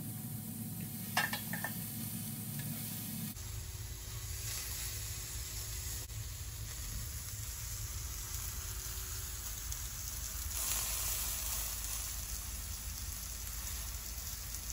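Sliced vegetables sizzling on an electric indoor grill, a steady hiss, with a few light clicks of metal tongs about a second in.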